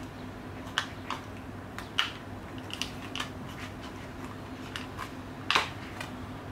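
Plastic clicks and taps from a disc being worked loose from the centre hub of a clear plastic Blu-ray case tray. There are about half a dozen short, sharp clicks, the loudest about two seconds in and again near the end, over a steady low hum.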